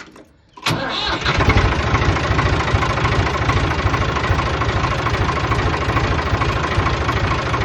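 Ford 4610 tractor's 201 cubic-inch diesel engine starting about a second in and settling into a steady idle.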